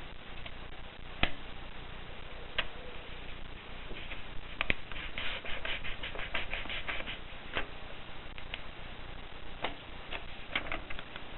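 1950s Voss typewriter being typed on. Single sharp key strikes come a second or two apart, with a quick run of keystrokes lasting about three seconds starting around four and a half seconds in.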